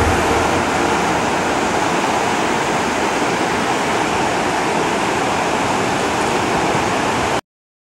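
Steady rush of water pouring over a river weir on the Po, stopping abruptly near the end.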